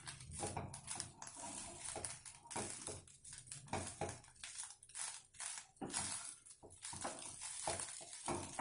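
A wooden spatula stirring and tossing curd-soaked poha (flattened rice) with grated coconut in a nonstick kadai while it sautés: repeated scraping strokes, about two to three a second.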